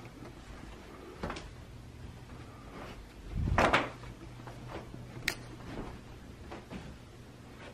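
A closet door being opened: a loud scraping rush about three and a half seconds in, then a sharp click a couple of seconds later, with a few softer knocks and a steady low hum underneath.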